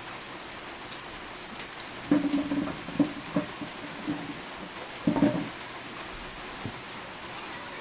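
Steady rain falling, with a few short pitched calls cutting through it about two seconds in and again around five seconds.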